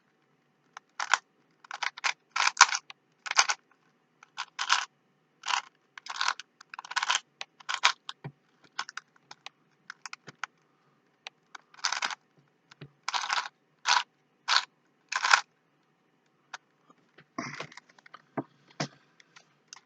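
Plastic Rubik's Cube being twisted: short scraping clicks of its layers turning, coming irregularly in quick runs with brief pauses.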